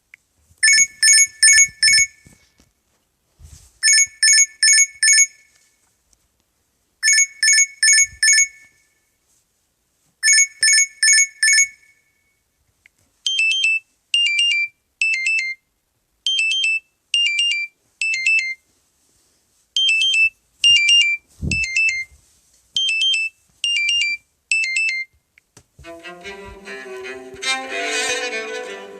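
LG G6 smartphone ringtones playing. First come quick bursts of about five high electronic beeps, repeated roughly every three seconds. Then comes a tone of three short beeps stepping down in pitch, repeated four times. Near the end a string-orchestra ringtone begins.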